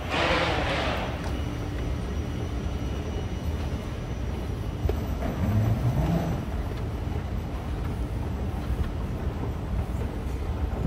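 Escalator running with a steady low rumble, mixed with terminal hall noise. A short rush of hiss comes in the first second, and a brief low rising sound about halfway through.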